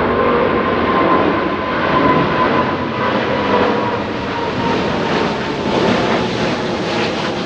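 Jet airliner's engines running loud as it passes, a steady rush with a faint whine slowly falling in pitch.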